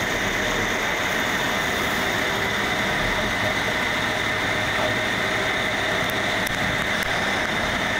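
Mercedes GL 500 4Matic driving, with steady, even road and wind noise at speed.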